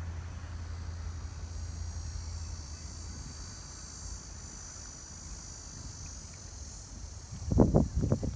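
Insects buzzing in a steady high-pitched drone, with a low rumble underneath that fades after the first few seconds. A sudden loud burst of low, gusty noise starts near the end.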